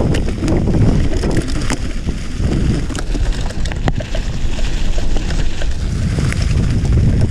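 Mountain bike rolling fast over a dirt trail: a steady low tyre rumble with scattered clicks and rattles, under heavy wind noise on the microphone.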